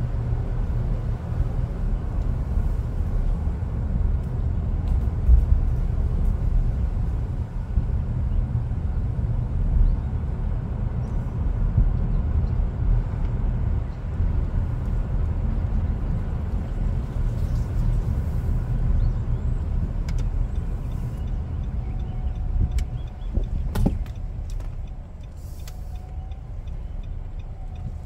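Steady low rumble of a car driving slowly, its engine and tyres heard from inside the vehicle, with a few sharp clicks near the end.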